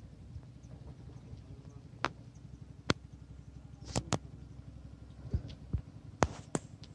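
A low steady hum with scattered sharp clicks and knocks, about eight of them, most in the second half.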